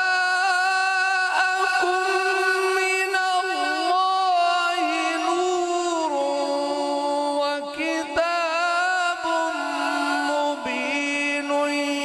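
A man's voice in melodic Quranic recitation, a slow chant drawing out single syllables into long held notes. The pitch steps down to a lower sustained note about halfway through.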